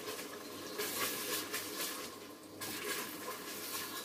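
Sofrito sizzling and bubbling in hot oil in an electric multicooker pot, with light crackling throughout.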